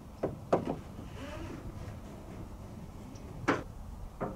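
Ratchet strap being cranked tight over a canoe's nose, giving sharp metallic clicks: two close together near the start and two more a little after three and a half seconds in.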